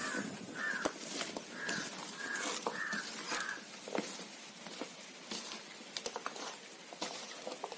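Hand mixing diced banana stem in a thick spice batter in an aluminium bowl: soft wet squelching with scattered clicks as the pieces are turned. A short call repeats about six times over the first few seconds.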